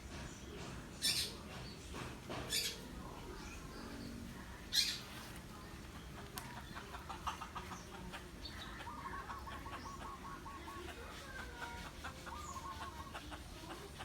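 Birds calling in rapid runs of short repeated notes, with three brief rustling, flapping-like bursts in the first five seconds.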